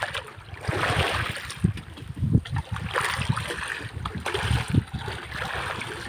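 Sea water sloshing and splashing against a bamboo outrigger boat's float and hull in uneven surges, with wind buffeting the microphone in irregular low thumps.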